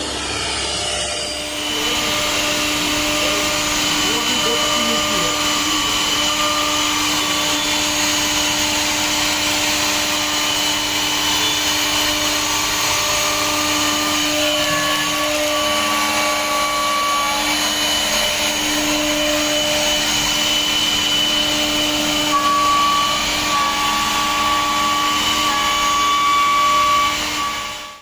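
CNC router spindle running at high speed while cutting, a steady whine over loud cutting and rushing noise; the pitch shifts slightly partway through, and the sound stops abruptly at the end.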